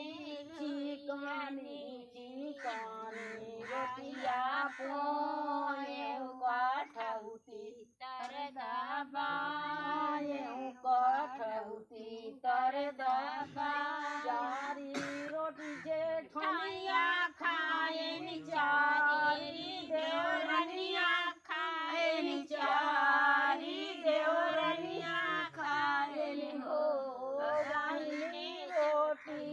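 Women singing a sohar, a traditional folk song for a child's birth, in a wavering melody with short breaks for breath.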